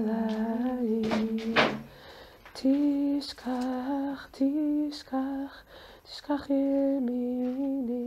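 A woman singing a slow, wordless melody in long held notes, in several phrases with short breaks between them.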